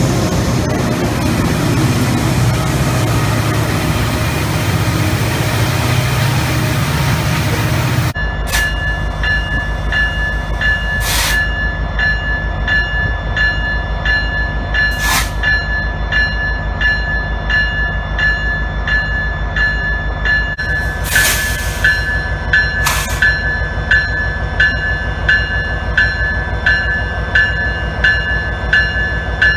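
A Norfolk Southern freight locomotive passes close by with a heavy rumble and rush. About eight seconds in this changes abruptly to a stopped EMD SD70ACC locomotive idling: a steady low engine pulse with a thin, high, steady whine, broken by a few short hisses.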